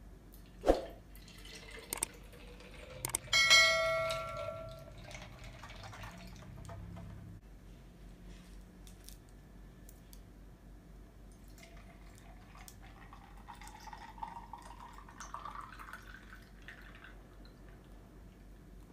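Chocolate milk poured from cartons into a large glass jar, the pouring pitch rising as the jar fills. A sharp knock comes about a second in, and a ringing clink a few seconds in.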